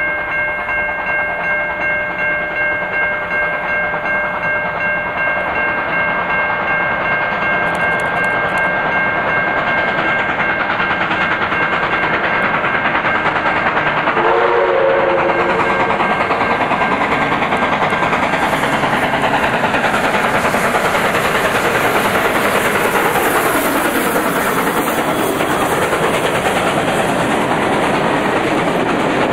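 NSWGR 59 class 2-8-2 steam locomotive 5917 approaching and passing with its train. It gives one whistle blast of about a second and a half near the middle, then the wheels clatter over the rail joints as the carriages go by.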